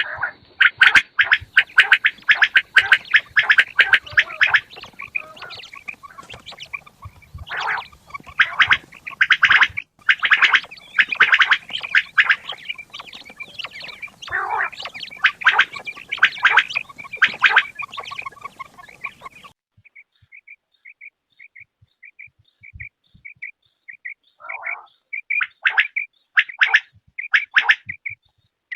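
Quails calling over and over in quick, harsh notes, several birds at once. About two-thirds of the way through the calling abruptly thins to a run of short, evenly spaced high notes, and a few louder calls return near the end.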